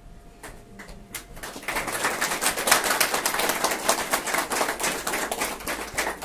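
Small group clapping in a small room, a few scattered claps at first and then steady applause from about two seconds in.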